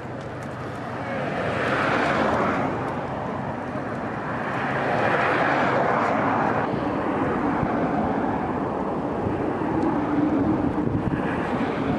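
Road traffic noise: a steady roar of passing vehicles, swelling twice in the first half and then holding steady.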